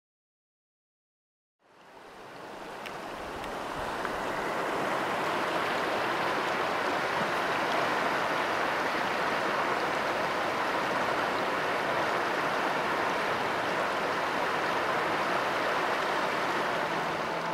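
Steady rushing of flowing river water, fading in after a couple of seconds of silence and then holding even.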